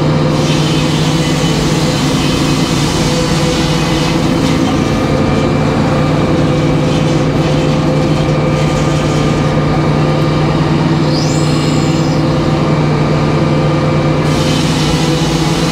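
Brand-new 56-inch B. H. Payne circular sawmill blade cutting through a log on its first test cut, over the steady hum of the mill's power unit. The cutting noise stops about a second and a half before the end, leaving the hum.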